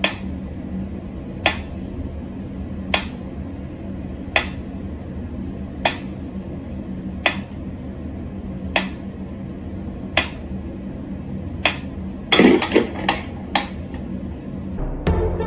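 Mechanical pyramid metronome ticking slowly, one sharp tick about every second and a half. Near the end comes a quick, irregular run of louder knocks and clicks.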